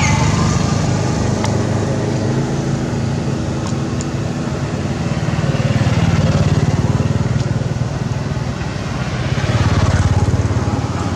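Motor vehicle engine running, a steady low drone that swells louder twice, about halfway through and near the end.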